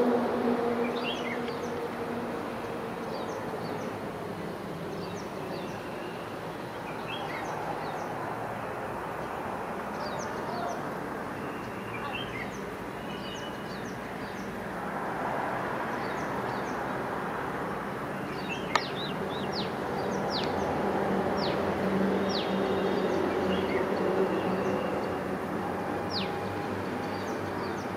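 Distant EMD WDP4D diesel locomotive's two-stroke V16 engine working hard up a gradient. It is a steady low drone that grows somewhat louder in the second half as the train approaches. Birds chirp throughout, and there is one sharp click about two-thirds of the way in.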